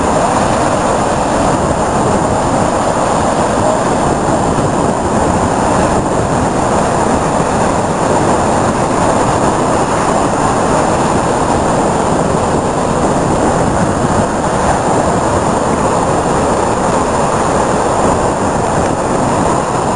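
Rough sea: heavy surf breaking and churning white over rocks, a loud continuous rumbling wash with no distinct separate wave crashes.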